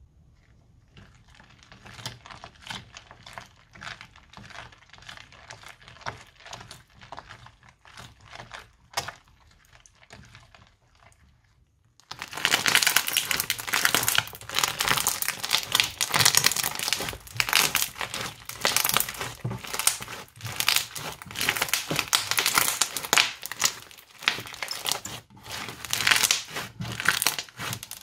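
Crunchy slime studded with small beads crackling softly as it is worked in a bowl with a spatula. About twelve seconds in, it changes to hands squeezing and kneading it, which gives much louder, dense crackling and popping.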